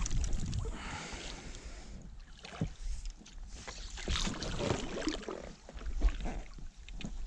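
Water splashing and sloshing as an oar and a landing-net pole are pushed through the water against the side of an inflatable rubber boat, with a few irregular knocks.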